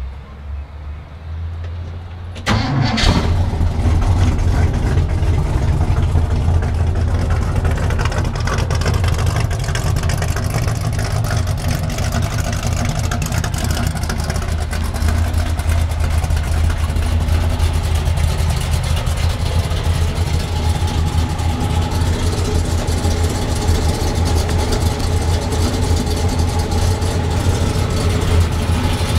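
1966 Chevrolet Chevelle SS's 396 big-block V8 starting about two and a half seconds in, then idling steadily through its exhaust.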